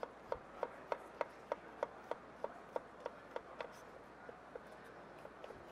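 Shun chef's knife dicing a green bell pepper on a wooden cutting board, sharp knocks at an even pace of about three a second. A little under four seconds in the strokes become fainter and sparser.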